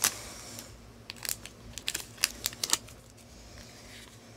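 Small items being handled: a crinkle right at the start, then a run of sharp little clicks and taps between about one and three seconds in.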